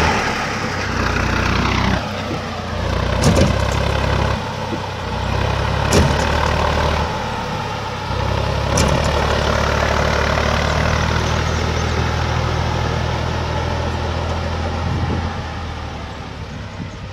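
Farm tractor engine working under load while towing a pickup out of a ditch on a chain; the engine note steps up and down. There are three sharp knocks along the way, and the sound fades near the end.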